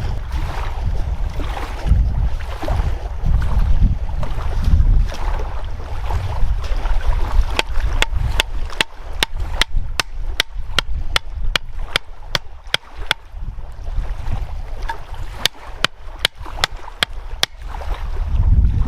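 Wind buffeting the microphone with a heavy low rumble, easing off in the middle. From about seven seconds in, a run of sharp, evenly spaced clicks comes at roughly three a second for about ten seconds, then stops.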